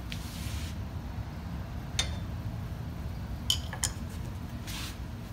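Sharp metallic clinks, one about two seconds in and a quick pair about a second and a half later, as a hand tool and hands work on the stepped belt pulleys atop a Millrite milling machine head, over a steady low hum.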